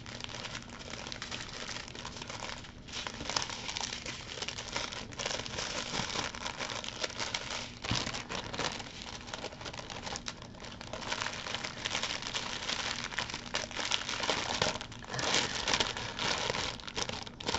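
Plastic crinkling and rustling: a clear plastic bag of small diamond-painting drill packets being handled and stuffed full, with the canvas's clear plastic cover film pressed and rubbed by hand. It grows louder near the end.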